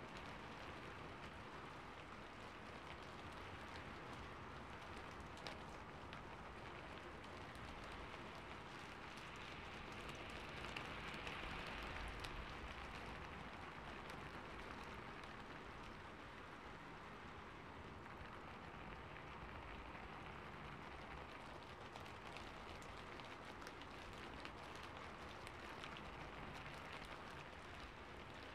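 Quiet, steady rain: an even hiss flecked with small drop ticks, swelling slightly about ten to thirteen seconds in.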